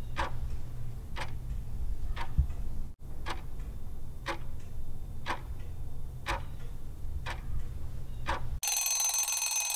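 Countdown clock sound effect ticking about once a second over a low steady hum. Near the end an alarm bell starts ringing as the time runs out.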